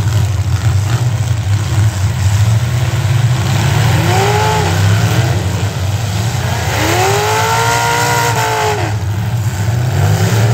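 Engines of several demolition derby vehicles running together with a steady low rumble; one revs up and falls back twice, briefly about four seconds in and for about two seconds near seven seconds.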